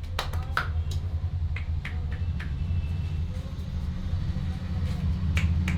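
Sharp cracking pops from a barber's massage, typical of knuckle or skin cracking: several in the first couple of seconds and two more near the end. A steady low rumble runs underneath.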